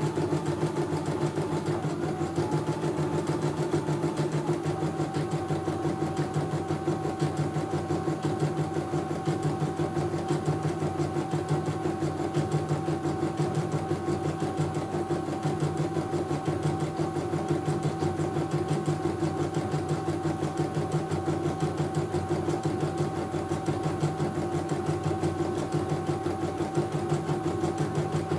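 CNY E900 computerized embroidery machine stitching a test design: a steady, rapid needle rhythm over the hum of its motor, with a faint whine that shifts pitch slightly a few seconds in.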